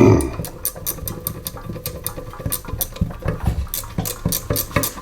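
Rapid, evenly spaced mechanical clicking, about five or six a second, with duller knocks beneath it, from work on a disassembled small engine.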